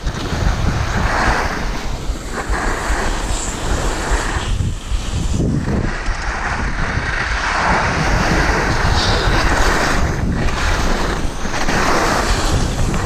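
Wind rushing over the microphone of a skier moving downhill, with the hiss of skis sliding and scraping on packed snow swelling every few seconds as the skier turns.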